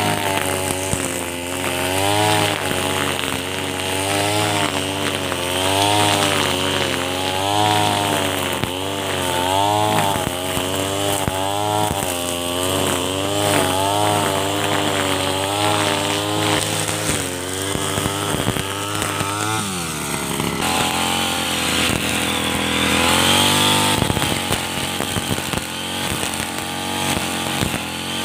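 Two-stroke petrol brush cutter (grass trimmer) running under load while cutting grass, its engine revs rising and falling about once a second as the head swings through the growth. Around twenty seconds in the revs drop away briefly, then climb again.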